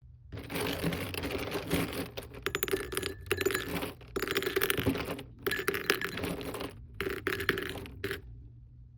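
Close-up handling of packaging and small items while a gift bundle is packed: crackly crinkling with small clicks and clinks, in several short stretches that cut off abruptly.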